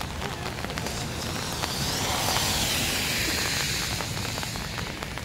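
Steady rain falling, with scattered raindrop ticks. A car passes on the wet road: its tyre hiss swells about a second and a half in and fades away by about four seconds.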